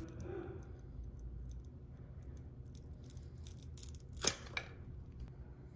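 Faint scraping and clicking of a steel 90-degree pick working an old, chewed-up exhaust gasket out of a Harley-Davidson Twin Cam exhaust port, with one sharp click a little past four seconds in.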